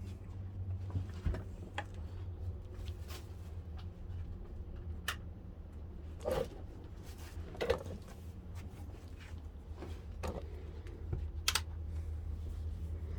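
Irregular light clicks and taps of small hard objects being handled, over a low steady hum.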